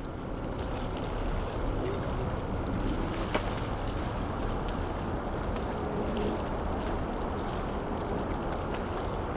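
Wind buffeting the microphone: a steady low rumbling rush, with faint scattered ticks and one sharp click about three and a half seconds in.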